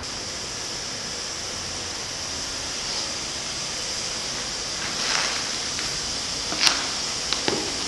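Steady hissing background noise in the empty gutted floor, with a few faint sharp clicks near the end.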